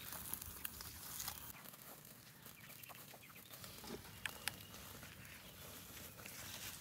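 Chickens clucking faintly, with scattered soft clicks.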